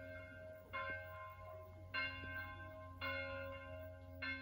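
Village church-tower bells ringing: four separate strikes a little over a second apart, each left to ring out, over a steady low hum. They are sounding the call for workers to come home to their families.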